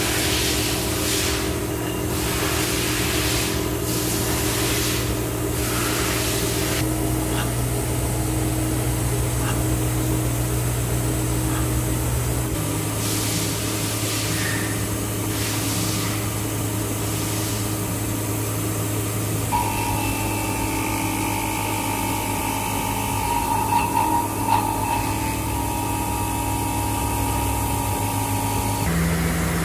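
UDM-2216 three-axis CNC machining center milling a steel part, running with a steady hum whose pitch shifts abruptly twice. Waves of hissing come in the first several seconds, and a high steady whine with some crackling is heard in the last third.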